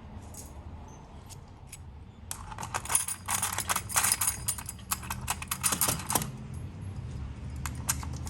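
Metal key blanks jingling and clinking as they are handled and hung on display hooks. A dense run of clicks starts about two seconds in and lasts about four seconds, with a few scattered clicks near the end.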